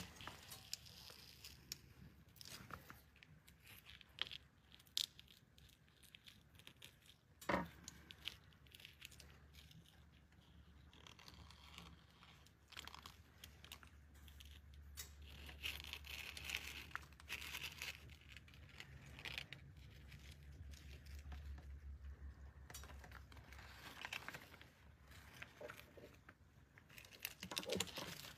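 Faint crinkling, rustling and peeling as rubber-gloved fingers and tweezers work stained banknotes on crumpled aluminium foil. Scattered small clicks run throughout, with one sharper click about seven seconds in and a faint low hum through the middle.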